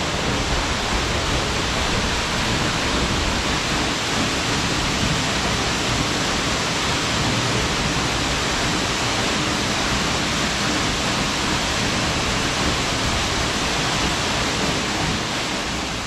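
A tall waterfall's falling water making a loud, steady rush.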